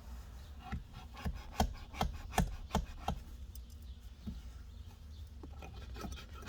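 Knife blade sawing and scraping through material in short repeated strokes, about two or three a second for the first three seconds, then fewer and further apart.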